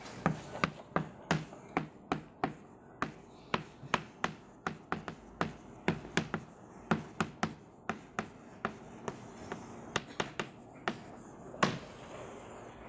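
Chalk writing on a blackboard: a string of sharp, irregular taps, about two or three a second, as each stroke of the letters strikes the board. One louder tap comes near the end, then they stop.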